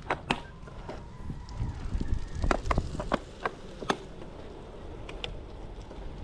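Scattered sharp clicks and knocks, irregularly spaced, over a low rumble of wind, as a bicycle is walked up a steep road.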